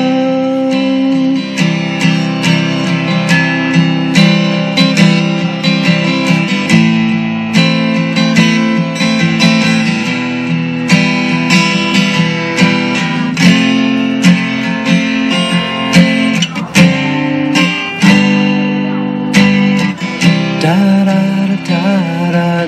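Acoustic guitar strummed in a steady rhythm, an instrumental passage between the sung lines of a pop song demo.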